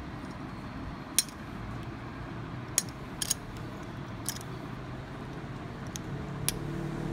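Sharp metallic clicks, about six spread irregularly, from a chrome paint spray gun being handled and its adjustment knobs worked by hand, over a steady low hum.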